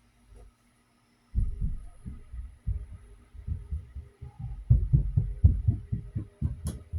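Air from a running Technical Pro rechargeable camping fan buffeting the microphone: irregular low rumbling gusts that begin about a second and a half in, over a faint steady hum.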